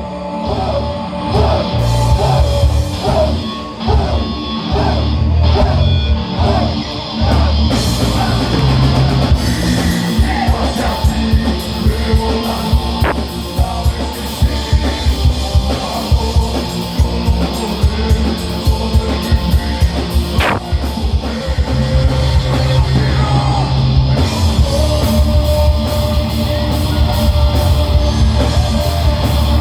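Heavy metal band playing live, with distorted electric guitars, bass and a drum kit. Wavering guitar lead lines fill the first seven seconds or so, then give way to fast drumming under the riffs.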